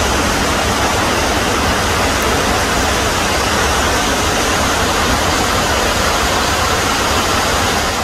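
Burney Falls' falling water rushing: a loud, steady, even noise with no break.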